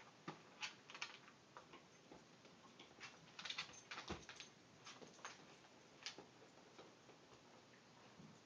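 A dog chewing at a bone: faint, irregular clicks and knocks of teeth and bone, busiest about three to four seconds in.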